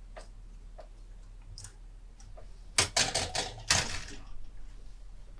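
Plastic model-kit parts on their sprues being handled: a few light clicks, then a burst of clattering and rustling about three seconds in.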